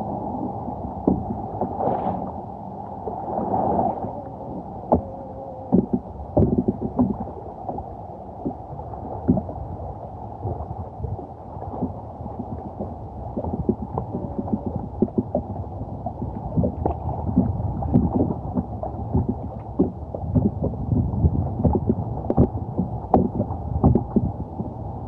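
Water sloshing and splashing around a kayak as it is paddled, with frequent small knocks. The sound is muffled.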